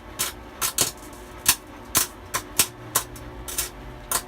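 Wire-feed welder arc crackling and popping in short, irregular bursts: about a dozen sharp cracks spread unevenly, the loudest near the middle, as the arc keeps striking and breaking off.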